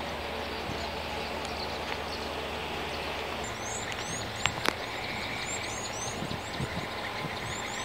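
Open-air background noise with a low hum that stops about halfway through, then a bird chirping over and over in short, high, rising notes. Two sharp clicks come close together soon after the chirping starts.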